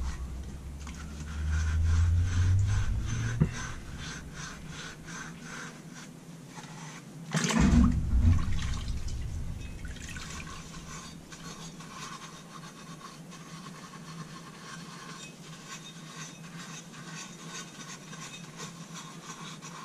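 Cleaning liquid dripping and trickling off a carburettor body as it is turned over an ultrasonic cleaner's tank, with a louder thump about seven and a half seconds in.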